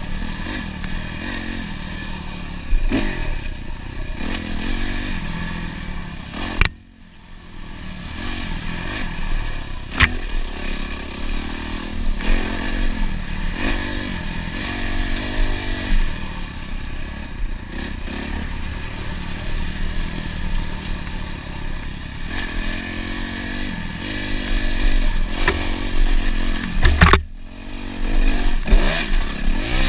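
Dirt bike engine running under a rider, its pitch rising and falling as the throttle is worked along the trail, with clatter from the bike over rough ground. A few sharp knocks cut through: one about a quarter of the way in, followed by a brief drop in engine sound, another a few seconds later, and one near the end.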